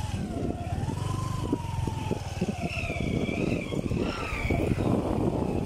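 Motorcycle running along a road, a steady low rumble with the engine note rising then slowly falling in the first half. Higher wavering tones come in briefly near the middle.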